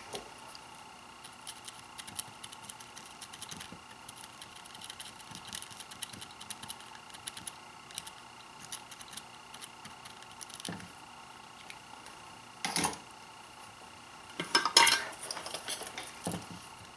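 Light clicks and taps of a flux pen being dabbed onto the pins of a circuit board and handled, with its plastic cap held in the other hand. Louder clatters come about three-quarters of the way through and again shortly after, as the pen and cap are handled.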